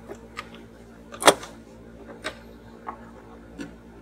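A few light clicks and knocks from objects being handled on a workbench, with one louder knock about a second in, over a low steady hum.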